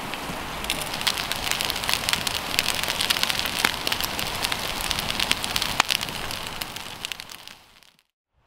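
Wood campfire burning, with frequent sharp crackles and pops over a steady hiss; it fades out near the end.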